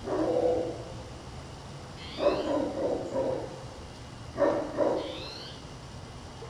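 Great Pyrenees mountain dog barking: one deep bark at the start, a run of several barks about two seconds in, and two quick barks about four and a half seconds in.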